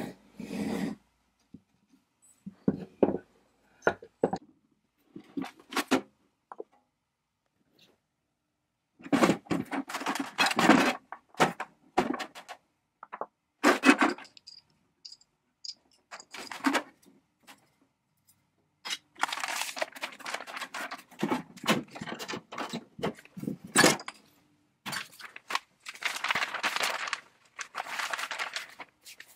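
Workshop handling sounds: metal tool parts and a sheet-metal case set down and moved on a wooden workbench, giving scattered knocks, clunks and scrapes. From about two-thirds of the way in, a plastic bag crinkles steadily in stretches of several seconds.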